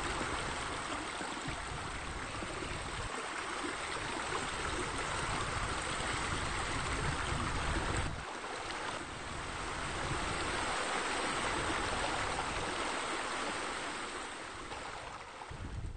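Steady rush of flowing, splashing water, like pool spillway water features pouring, with a brief dip in level about eight seconds in.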